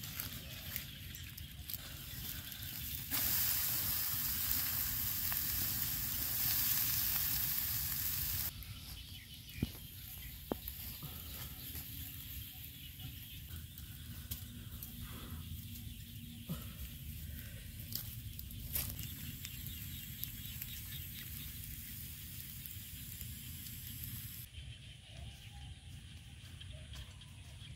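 Frogs grilling on a wire rack over a charcoal fire: a steady sizzle with a few sharp crackles from the embers. A much louder hiss starts about three seconds in and cuts off abruptly some five seconds later.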